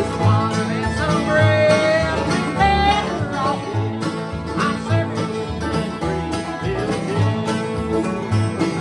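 Acoustic bluegrass jam: acoustic guitars strumming and an upright bass playing a low note about once a second. A melody line slides in pitch over them in the first few seconds.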